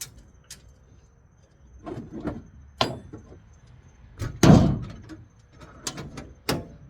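Tools being handled and set down: a series of separate clunks and knocks, with a heavier, longer clunk about four and a half seconds in.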